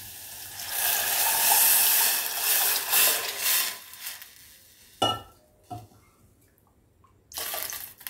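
Tamarind water poured into a hot stainless steel pot of fried thuthuvalai leaves and spices, a rush of splashing liquid lasting about three seconds. Two knocks of a vessel follow, and a second short pour comes near the end.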